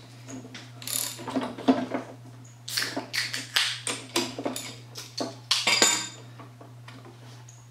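Ratchet wrench clicking and metal parts clinking in irregular bursts as a fitting on a mower deck's gear case is worked, over a steady low hum.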